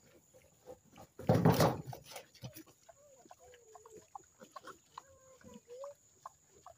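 Herd of pigs and piglets rooting and feeding, with one loud, harsh burst of animal noise about a second in, then faint wavering grunts and scattered small clicks.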